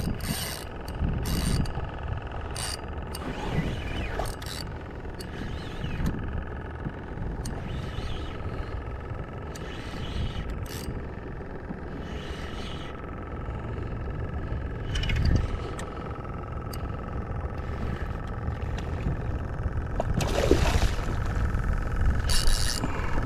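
A spinning reel cranked in steadily as a hooked fish is played on a bent rod, with light clicks from the reel over steady wind and sea noise on the microphone and a low hum. About twenty seconds in, a louder splash as the fish thrashes at the surface beside the boat.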